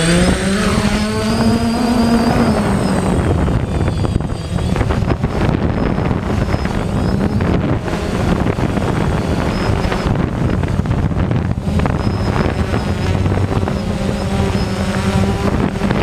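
DJI Phantom quadcopter's motors and propellers heard close to the microphone, rising in pitch over the first two seconds as it lifts off, then holding a steady hum in flight.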